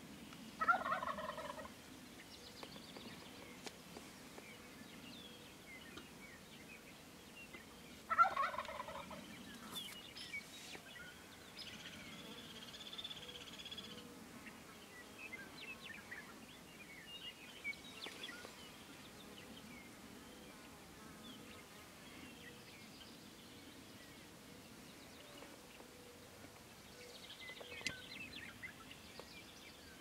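A wild turkey gobbles twice, about a second in and again about eight seconds in, each gobble a quick run of notes lasting about a second. Small birds chirp faintly in between.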